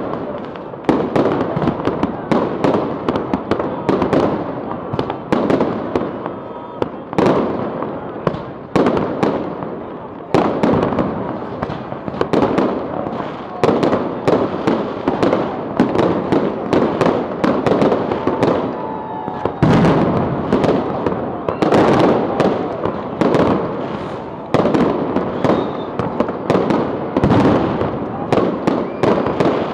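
Aerial fireworks bursting overhead in a continuous barrage of loud, overlapping bangs, several every second with no pause.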